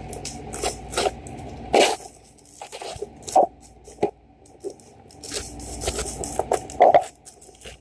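Scraping, crinkling and tearing as a taped toy box is picked and pried open by hand, with irregular sharp snaps and clicks, the loudest about two seconds in, halfway through and near the end.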